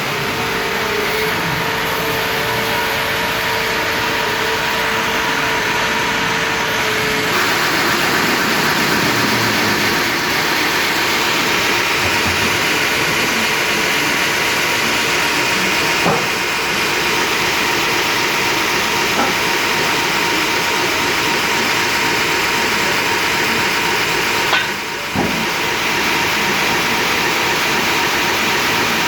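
Sawmill machinery running steadily, a continuous mechanical hum under a dense hissing noise. A steady lower tone drops out about seven seconds in, and the sound briefly dips near the end.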